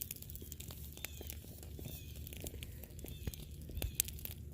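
Gel-ball filling of a plush toy burning, crackling and popping with irregular small snaps, a couple of them sharper past the middle.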